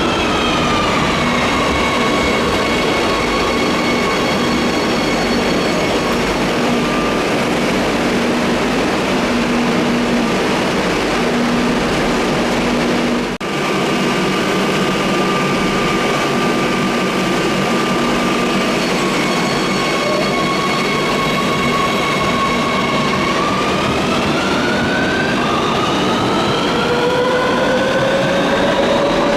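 Madrid Metro Serie 3000 electric train's traction motors, whining in several tones. The whine falls in pitch as the train finishes braking to a stop, holds a steady electrical hum while it stands at the platform, then climbs in pitch near the end as it accelerates away.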